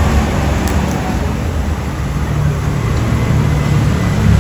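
A motor vehicle's engine running, a steady low rumble with road noise.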